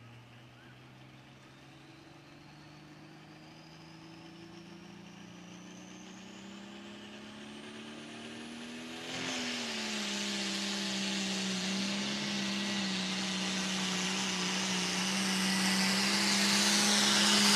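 John Deere light limited pro stock pulling tractor's single-turbo diesel engine building revs while hooked to the sled, with a high whine rising in pitch. About nine seconds in it takes the load: it gets much louder, the pitch dips slightly, and then it holds at high revs, growing louder as the pull goes on.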